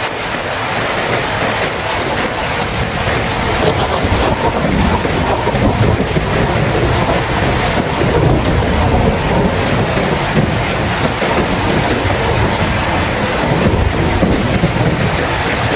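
Steady heavy rain hissing, with low rolling thunder rumbling beneath it and swelling a few times.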